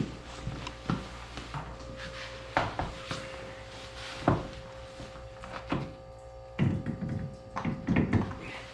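Irregular thunks and clunks of tires, wheels and tools being handled during a tire change, closer together near the end, over a faint steady hum.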